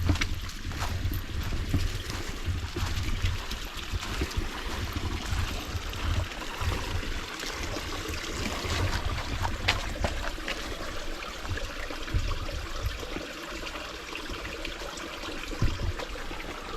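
A creek running and trickling, with a steady rushing hiss and a low rumble on the microphone.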